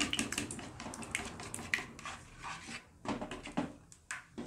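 Plastic spatula clicking and scraping against a ceramic bowl as an egg is beaten into a wet spice paste, in quick runs of strokes with a short pause a little past halfway.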